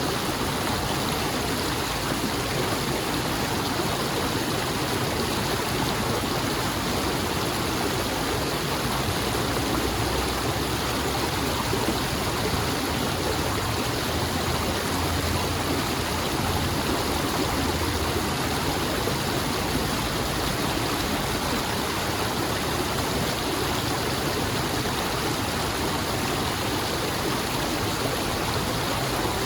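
Running water of a stream flowing steadily, an even, unbroken water noise with no separate splashes or changes.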